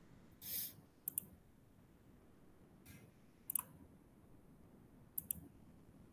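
Faint computer mouse clicks, a handful of short sharp clicks, some in quick pairs, with a brief rustle about half a second in.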